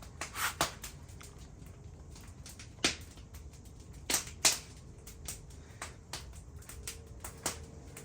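Scattered, irregular sharp metallic clinks and taps of tools and engine parts being handled during timing chain work, the loudest three about three, four and four and a half seconds in.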